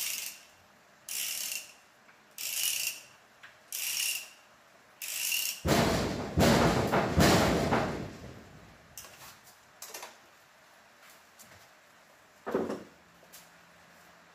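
Ratchet wrench worked on an engine bolt in five short strokes, a little over a second apart. Then a loud rattling noise of about two seconds, followed by a few faint clicks and a single knock near the end.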